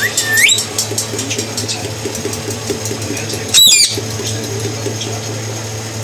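Pet parrot calling twice: a short rising whistle at the start and a loud, harsh squawk a little past halfway, over a steady low hum.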